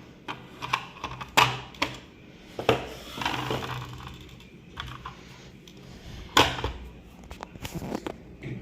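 Toy packaging being handled and opened: irregular sharp clicks and taps, with a longer rustle about three seconds in.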